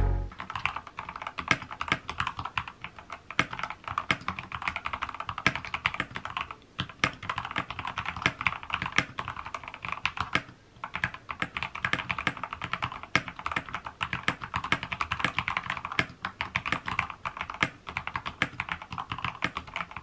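Continuous fast typing on a Dustsilver D84 mechanical keyboard fitted with its factory red linear switches: a rapid, uneven patter of keystrokes. The typing breaks off briefly about 7 and 10½ seconds in.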